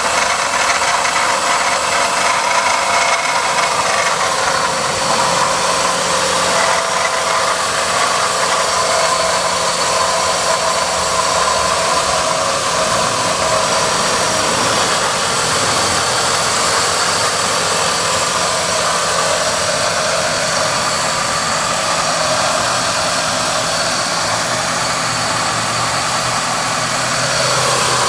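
Car engine idling with a mechanical rattle, a noise the owner says comes for about 20 seconds after starting the car and then goes away. The sound changes near the end.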